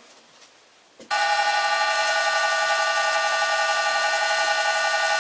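Old metal lathe running, its motor and spindle drive giving a steady, even whine with several pitched tones; it starts abruptly about a second in after a quiet moment.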